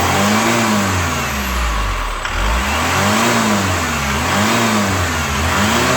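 Chevrolet Captiva FL turbodiesel engine revved repeatedly up toward about 3,500 rpm, its pitch rising and falling about four times over a steady rushing hiss. This is a check for the turbo growl ('ngorok') the car came in with, after the turbo was cleaned and its hose replaced, and it sounds fine now.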